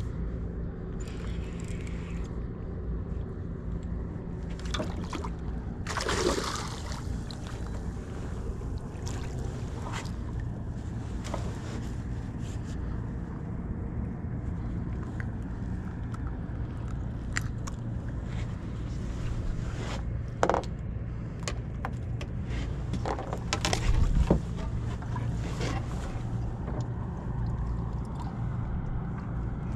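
A boat's motor hums steadily under knocks, scrapes and clicks as a summer flounder is unhooked and laid on a measuring ruler on a boat deck. A louder rustle comes about six seconds in and a heavier thump about twenty-four seconds in.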